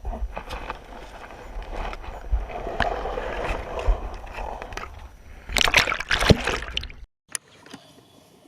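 Water sloshing and splashing with handling knocks, louder for a moment near the end, then cutting off suddenly about seven seconds in.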